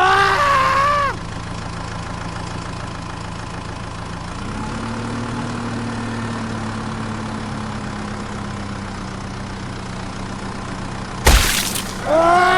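Vehicle engine idling with a steady hum that rises slightly about four and a half seconds in, with a short sharp bang near the end. A brief voice-like cry opens it and another begins just before the end.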